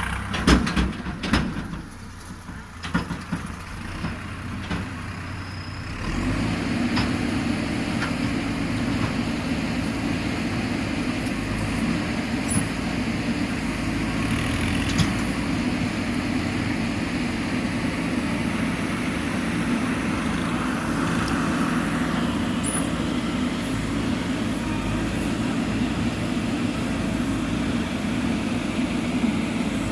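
Heavy vehicle engine running, with scattered knocks and clatters over the first few seconds; about six seconds in the engine suddenly gets louder and settles into a steady drone.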